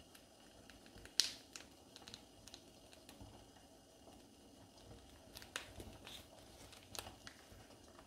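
A few faint, scattered clicks and taps from a glass spice shaker being handled and shaken over a ceramic bowl, with the sharpest tap about a second in.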